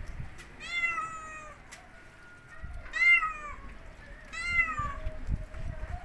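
A domestic cat meowing three times, each drawn-out call rising and then falling in pitch.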